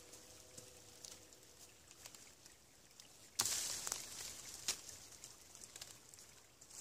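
A thin branch being worked with a knife: quiet at first, then a sudden scraping rustle about three and a half seconds in that fades over a second, and a sharp click about a second later.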